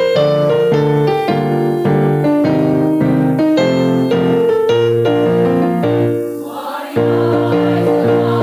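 Electronic keyboard playing a choir accompaniment on a piano sound, moving through chords in even note-by-note steps. About six seconds in it dips briefly, and a fuller, more sustained passage starts about a second later.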